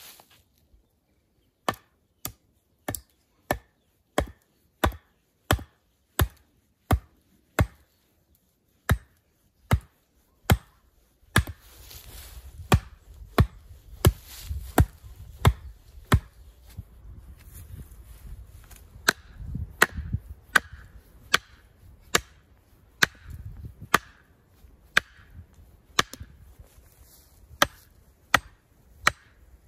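Hatchet blows on the top of a wooden post, driving it into the ground: sharp wooden knocks at a steady pace of about three every two seconds, kept up throughout after the first second or so.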